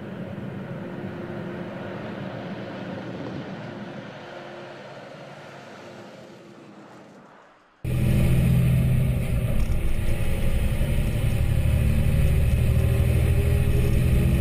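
Volvo FH16 700 truck's 16-litre straight-six engine running and its tyres on gravel, growing steadily fainter over the first several seconds. At about eight seconds it jumps to a loud, steady close-up engine drone with tyre and gravel noise, heard from right beside the front wheel.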